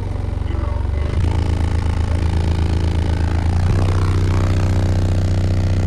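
A wall of Sundown Audio 15-inch subwoofers in a semi truck's custom car-audio system playing a bass-heavy track very loud, a deep, sustained droning low end heard close to the drivers. It grows louder about a second in.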